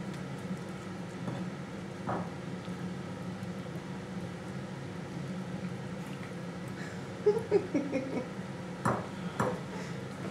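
Siamese cat eating off a china plate: its mouth and the plate give a quick run of clicks and short scraping squeaks about seven seconds in, then two sharper clinks about a second later, over a steady low hum.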